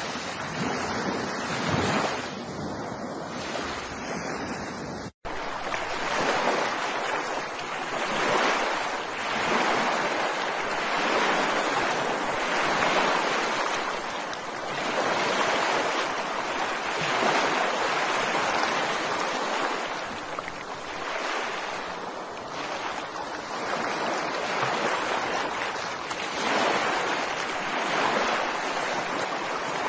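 Ocean waves breaking and washing on a beach, a steady surf that swells and eases every few seconds. A split-second dropout about five seconds in.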